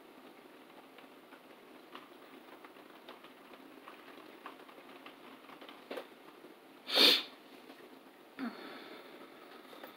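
Quiet small-room tone with faint taps of a makeup brush, broken about seven seconds in by one short, sharp sniff, the loudest sound.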